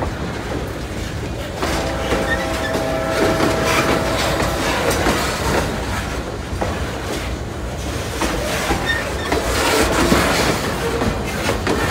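Freight train's loaded lumber flatcars rolling past, steel wheels rumbling and clattering over the rail joints. A faint high squeal rides over it for a few seconds, starting about two seconds in.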